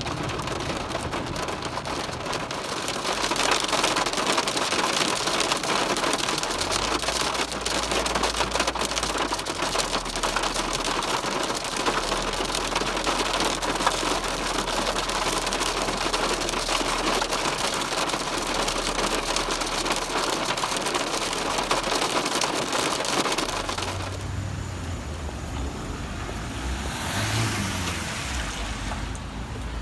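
Heavy rain falling hard on the roof of a car, heard from inside the car, a dense patter of drops. It eases to a quieter, different sound about six seconds before the end.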